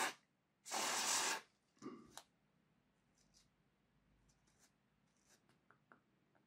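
Aerosol solvent cleaner hissing in two short sprays, the second under a second long, degreasing a model locomotive bogie's axles. A few light clicks follow, then only faint ticks.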